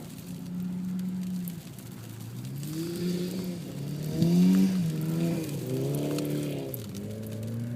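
Mitsubishi Lancer Evolution's engine revving up and down several times, its pitch rising and falling in repeated swells, loudest about halfway through.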